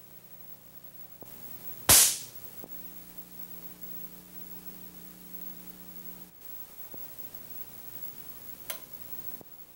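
Two sharp cracks from a high-voltage spark source firing acoustic test pulses: a loud snap about two seconds in and a fainter one near the end. A low steady hum runs underneath.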